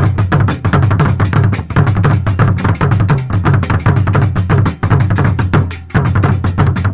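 Music with fast, dense drumming over a heavy bass line; it drops out briefly about six seconds in, then comes back.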